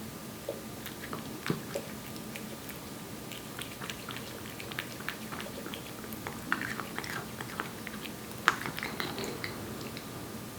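Korean shorthair cat eating wet cat food: irregular, close-up wet chewing and smacking clicks, busiest a little past six seconds in, with one sharp, louder click about eight and a half seconds in.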